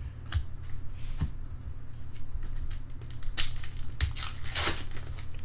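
Trading-card packs and cards being handled: crinkling and rustling, with louder crackles about three and a half and four and a half seconds in, over a low steady hum.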